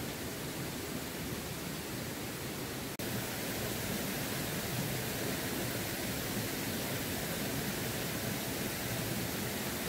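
Steady rushing of flowing water, an even hiss-like roar from a waterfall or river, with a brief break about three seconds in after which it is slightly louder.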